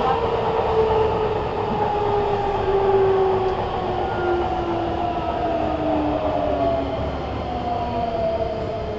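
Nagoya Municipal Subway N3000-series train heard from inside the passenger car: running rumble with the traction motor whine, several tones together, falling steadily in pitch as the train slows under braking.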